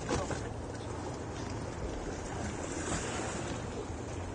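Steady wind noise on the microphone with waves washing against the side of a small boat.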